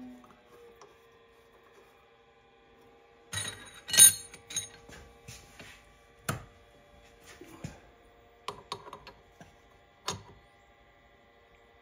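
Metal clicks and knocks from a milling machine's spindle stop being handled and adjusted by hand. A cluster of sharp clicks comes about three and a half seconds in, the loudest around four seconds in, followed by single knocks through the rest, one as a wrench goes onto the stop's bolt near the end. A faint steady hum runs underneath.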